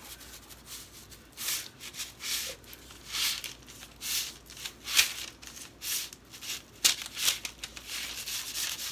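A knife sawing through a sponge cake layer on parchment paper: a run of short rasping strokes, roughly a second apart, with a couple of sharper clicks and the paper rustling.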